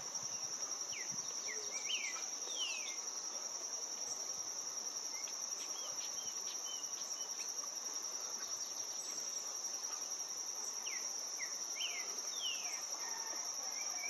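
Steady high-pitched insect chorus, with a bird giving two short runs of quick, sliding whistled notes, about a second in and again near the end.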